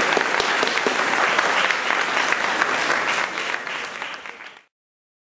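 Audience applauding, a dense spread of many hands clapping, fading slightly and then cutting off abruptly near the end.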